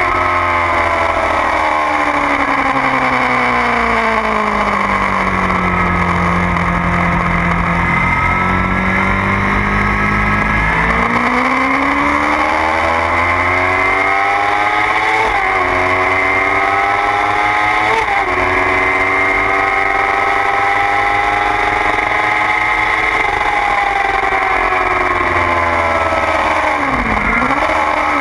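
2009 Kawasaki ZX-6R's inline-four engine at speed on track. The revs fall away for several seconds, then climb hard, cut by two sudden drops of the upshifts about halfway through. They hold, sink again, and near the end make a quick dip and recovery, a downshift.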